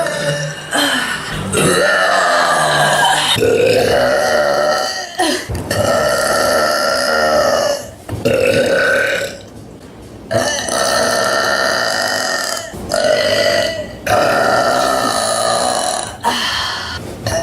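A young woman burping over and over: about eight long, drawn-out burps one after another, with short pauses between them.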